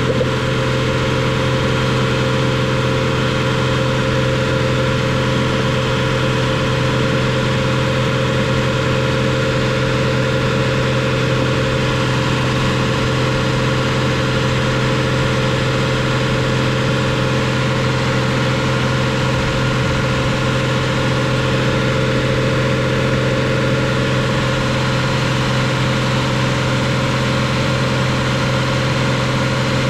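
Nissan Frontier's engine running steadily at a held fast idle of about 2500 rpm, its pitch unchanging, to purge trapped air from the cooling system, which the owner blames for the heater blowing no hot air.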